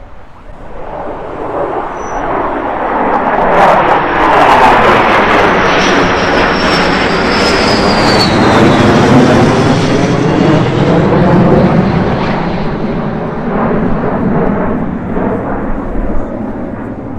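A fighter jet's engine passing close by: a loud jet rumble swells up over the first few seconds and holds, with a high whistle from the engine nozzle sliding down in pitch midway, then eases slightly as the jet moves away.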